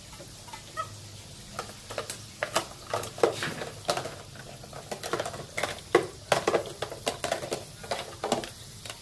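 Plastic toy dishes clattering and knocking in a small plastic sink with water splashing, as a capuchin monkey handles them. The irregular clacks start about a second and a half in and keep coming.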